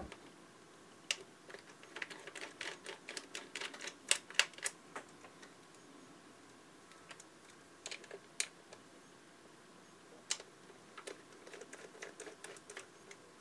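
Faint, irregular small clicks and ticks of a precision screwdriver working small screws out of a Nikon Coolpix P520 camera body as the camera is handled, in a quick cluster over the first few seconds, a few isolated clicks in the middle, and another cluster near the end.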